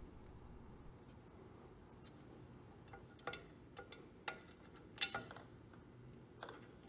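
A few scattered light metallic clicks and clinks as the oil pump and its fasteners are handled and fitted into the aluminium crankcase of a Honda CBX engine, the loudest about five seconds in.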